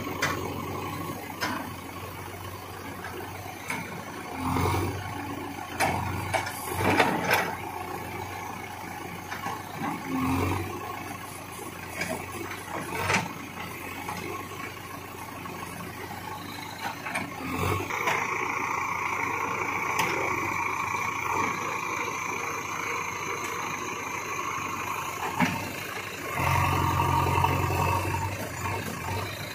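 Diesel engines of a JCB 3DX backhoe loader and a Mahindra tractor running under load while the backhoe's bucket pushes the stuck, loaded trolley through mud, with several knocks in the first half. A little past halfway the engine revs up and holds a higher, whining pitch, and near the end there is a louder surge.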